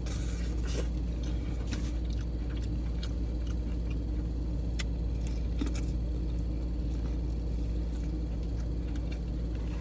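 Scattered small clicks and crunches of someone eating crab boil close to the microphone, over a steady low hum.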